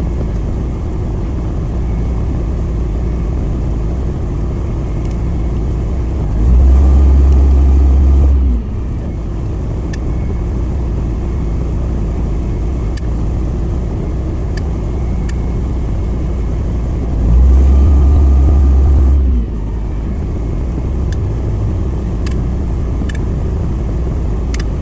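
A motor running steadily with a low rumble. Twice, about 7 and 17 seconds in, a louder low hum comes in for about two seconds.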